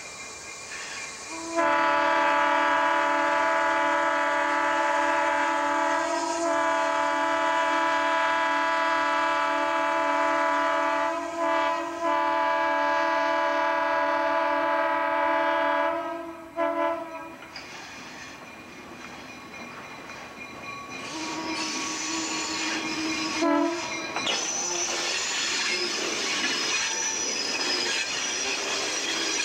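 A diesel locomotive's air horn sounds a chord for a grade crossing in long, long, short, long blasts. Later the train rolls past close by, its wheels clattering and squealing on the rails.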